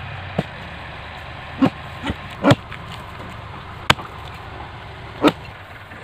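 Axe and pickaxe blows striking soil and roots at the base of a sembal (silk-cotton) tree as earth is dug away from around the trunk: about six sharp, irregularly spaced strikes. A steady low engine hum runs underneath.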